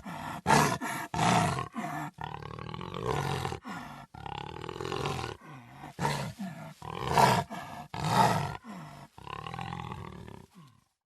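Big cat roaring in a string of short, loud calls broken by sudden cuts, stopping about ten and a half seconds in.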